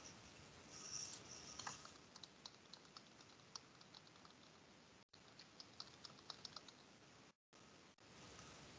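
Faint computer keyboard typing picked up over an open video-call microphone: a run of light, irregular key clicks. The sound cuts out briefly twice.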